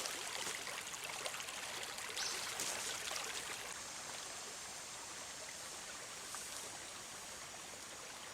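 Small mountain stream running over rocks: a steady rush of flowing water that eases slightly about four seconds in.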